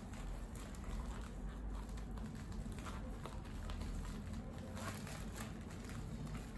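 Light rustling and small clicks of hands handling a plastic toy package as it is opened, over a steady low hum.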